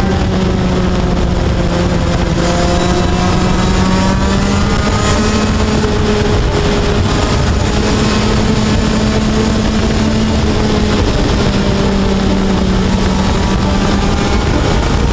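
Rotax 125 cc DD2 two-speed, two-stroke kart engine under way. Its pitch climbs as the throttle opens, eases off, and climbs and falls again, over a steady rush of noise.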